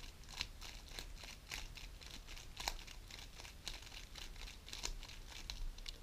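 A GAN 11 M Pro magnetic speedcube being turned quickly by hand through a repeated four-move sequence: a fast, irregular run of light plastic clicks and clacks from the layer turns.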